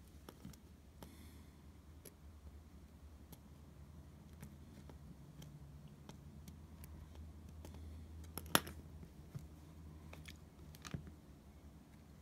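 Faint small clicks and taps of tiny brass torch parts and a small screwdriver being handled on a work surface, with one sharper click about eight and a half seconds in and a few more near the end, over a steady low hum.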